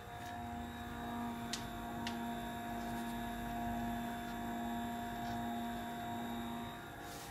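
Geared NEMA 17 stepper motor, fed by a micro-stepping driver, running a timing-belt drive on a Dobsonian telescope mount. It gives a steady hum that starts just after the beginning and stops about a second before the end, with a couple of faint clicks early on.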